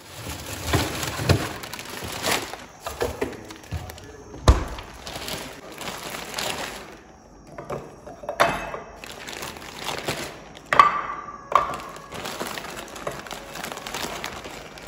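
A clear plastic bag crinkling and rustling as raw chicken pieces are taken out of it by hand and laid on a plate, with several sharp knocks of the pieces and plate on a stone countertop, the loudest about four and a half seconds in.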